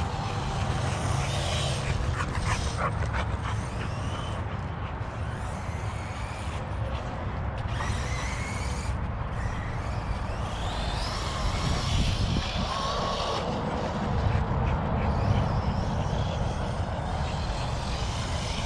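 ARRMA Notorious RC truck's brushless motor, on a 4S LiPo, whining as it revs up and down several times while the truck is driven, over a steady low rumble.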